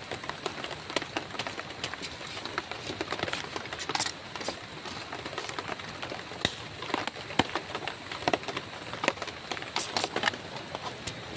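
A string of irregular clicks and knocks, a few sharper than the rest, over a faint steady hiss.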